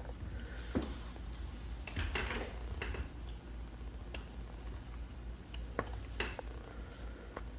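Scattered light clicks and brief rustles over a steady low hum of room and equipment noise.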